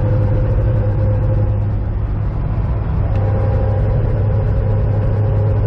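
Supercharged Corvette V8 running steadily with a constant low drone, and a fainter tone above it that fades for about a second partway through.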